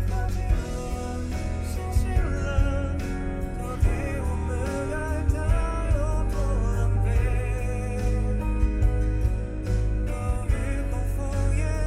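A song playing: a singing voice over a steady beat with heavy bass.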